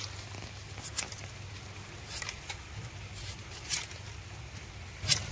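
Sickle blade cutting into an ice apple (palmyra palm fruit), several short sharp cuts about a second apart.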